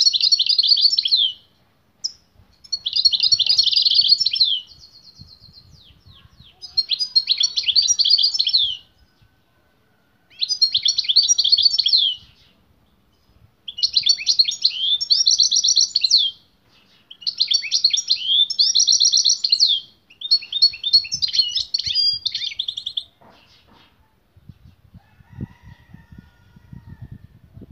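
European goldfinch singing: seven quick, twittering, high-pitched song phrases of about two seconds each, separated by short pauses, stopping about 23 seconds in. It sings hard and without let-up, as a male goldfinch does when stirred by a female singing nearby.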